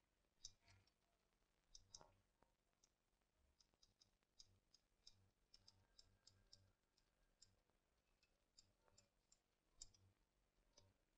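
Near silence, with faint, irregular small clicks scattered throughout, sometimes several a second.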